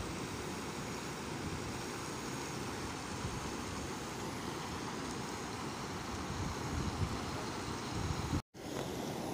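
Muddy floodwater rushing over a road in a steady wash, with wind buffeting the microphone. The sound cuts out for a split second near the end.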